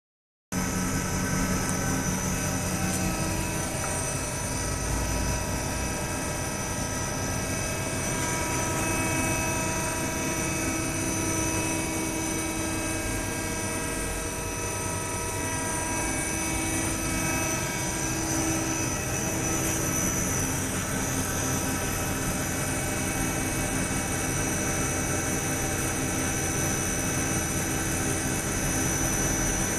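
MC2036B automatic wood lathe running steadily while turning a wooden handle. Its motors and spindle give several steady whining tones over an even hiss.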